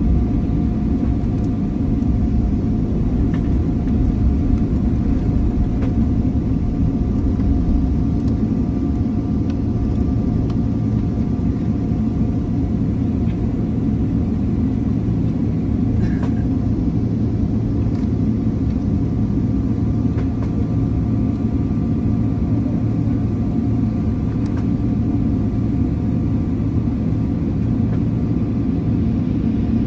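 Jet airliner's engines heard from inside the cabin while taxiing: a steady rumble with a steady whine over it.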